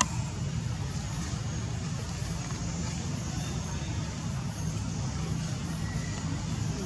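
Steady low rumble of outdoor background noise, with a faint hiss above it.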